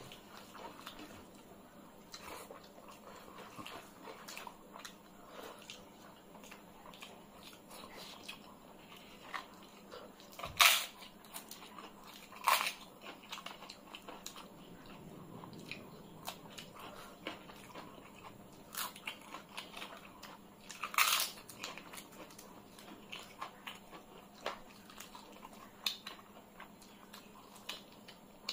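Close-miked eating by hand: soft wet squishing of rice mixed with curry, lip smacks and chewing, broken by a few loud crunching bites, about ten, twelve and twenty-one seconds in.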